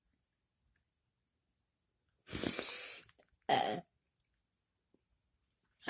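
A person's mouth noises: a breathy, hissing exhale a little over two seconds in, then a short voiced sound about a second later.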